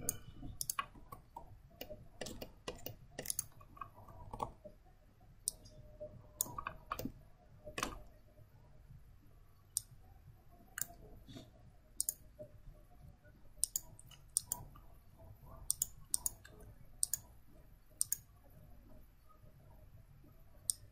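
Computer mouse clicking at irregular intervals, faint and sharp.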